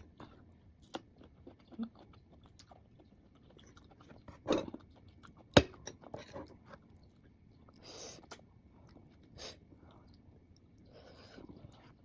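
Close-up chewing and crunching of sour mango slices eaten with spicy shrimp paste: irregular crunches and mouth clicks, the sharpest crunch about five and a half seconds in.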